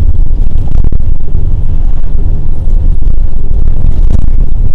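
Loud, steady low rumble of road and engine noise inside a moving vehicle's cabin.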